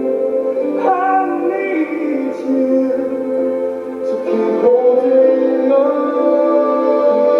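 Music: a slow song with long held sung notes over sustained chords, the notes changing about a second in and again around four seconds in.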